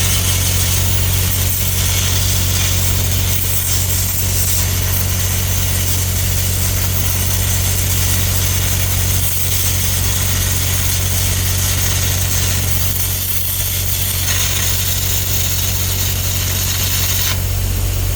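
Stick welding with 3/16-inch 6010 rod: an uneven crackling and hissing arc, over a steady low engine hum that runs throughout.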